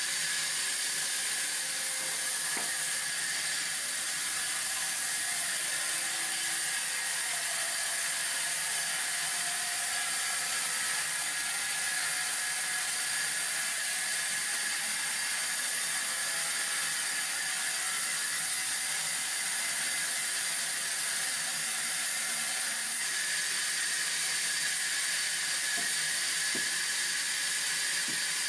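Sawmill band saw running steadily, its blade sawing lengthwise through a log: a steady high hiss with a faint steady tone in it.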